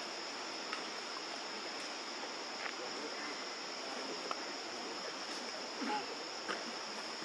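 Steady high-pitched drone of insects such as crickets or cicadas over a constant hiss of forest background, with a few brief sharp sounds scattered through it.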